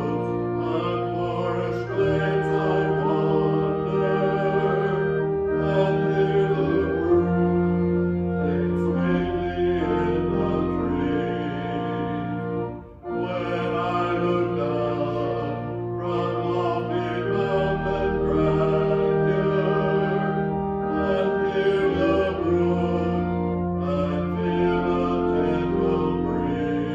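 Sacred choral music: voices singing a hymn over instrumental accompaniment in long phrases of held notes, with a brief break about 13 seconds in.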